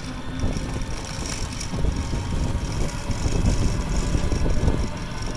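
Low, uneven rumble of a moving road vehicle and its road noise, heard from on board.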